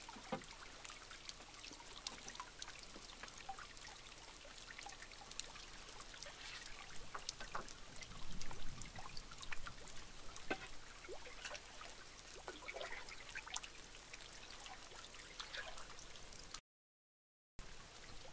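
Faint lapping and trickling of water around a canoe against a rock shore, with many scattered small drips and splashes. The sound cuts out completely for about a second near the end.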